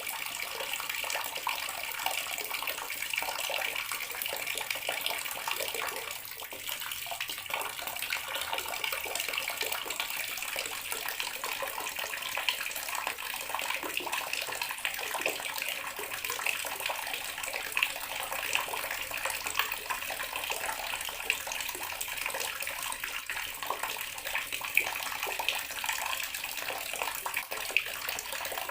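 Bathroom water tap running steadily, its stream splashing below in an even, hissing spatter, with a few sharper splashes now and then.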